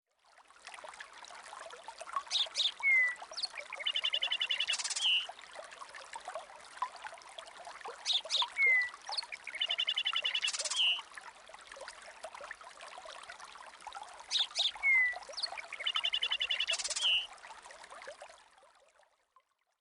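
A OnePlus Nord CE 5G nature-sound tone: recorded birdsong chirps and trills over running water. The same phrase of calls repeats three times, about six seconds apart, and the tone fades out near the end.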